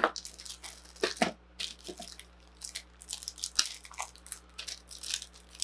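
Clear plastic bag around a model-kit sprue crinkling and rustling as it is handled, in irregular crackles with a few sharper snaps.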